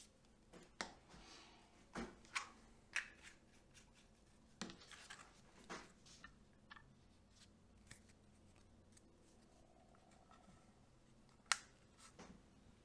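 Faint, scattered light taps and clicks of thin wooden dowels being handled and set down on a plywood piece and cutting mat, with the sharpest click near the end.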